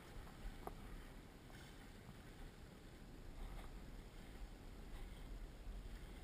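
Faint, steady rush of wind and water around a small sailboat under sail close-hauled, with a low rumble underneath.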